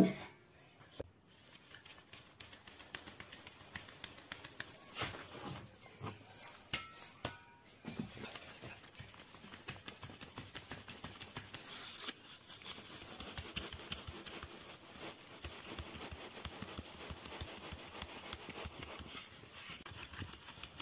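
Flour being sifted through a round wooden-rimmed hand sieve: a few separate knocks at first, then a steady, fast rustling and ticking as the sieve is shaken and patted and the flour falls through.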